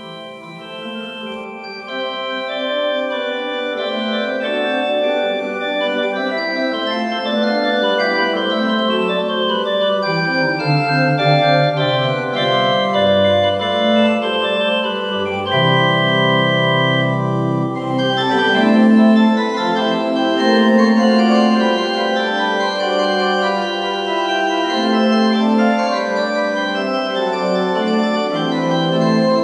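Church organ playing, many sustained notes together, coming in just before and swelling over the first few seconds, with low pedal notes sounding through the middle of the passage.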